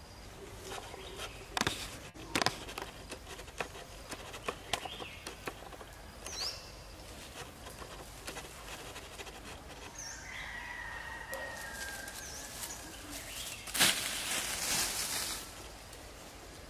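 Leaves and twigs in dense undergrowth rustling, crackling and snapping as it is pushed through, with a loud burst of rustling near the end. A few short high chirps come through in the middle.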